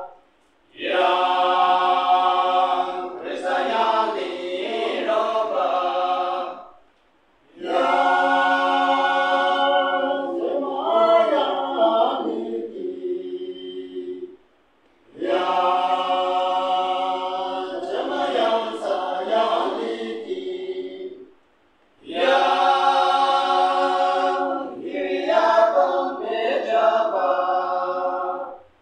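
Men's choir singing unaccompanied, in long phrases of about six seconds, each followed by a brief silent break.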